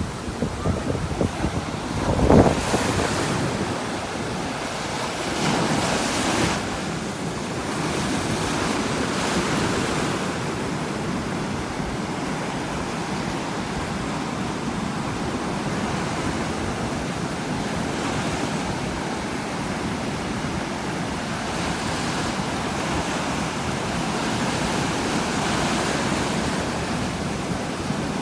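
Strong ocean surf breaking on a beach: a continuous rushing wash that swells several times as waves break and run up the shore, with wind on the microphone. A sharp low thump about two seconds in is the loudest moment.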